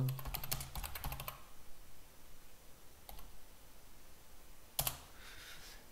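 Typing on a computer keyboard. There is a quick run of keystrokes in the first second and a half, a single keystroke about three seconds in, and one louder key press near five seconds.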